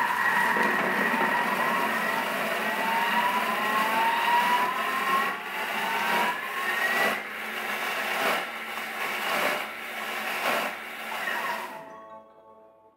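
Thermomix TM6 motor blending steamed sweet potato and butter at speed 7: a loud, high whine, with its pitch rising partway through and regular thumps about once a second in the second half. It winds down and stops near the end.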